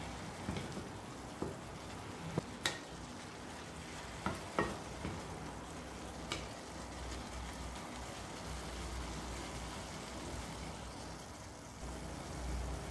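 Sliced pork and onions sizzling steadily in a frying pan while being stirred with a wooden spatula, which scrapes and knocks against the pan several times in the first half.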